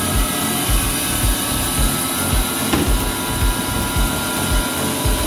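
Officine C.G.T. bone band saw running without cutting: a steady motor-and-blade hum with a low beat about two to three times a second. There is one light knock about halfway through.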